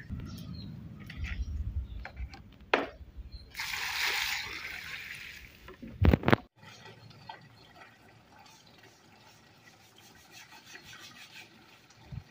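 Water poured from a plastic bucket onto the soil of a tree bed, splashing hardest about four seconds in, with a couple of sharp knocks; after about six seconds only a faint trickle remains.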